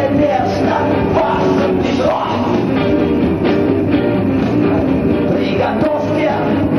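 Live rock music: a man singing into a microphone over guitar and band.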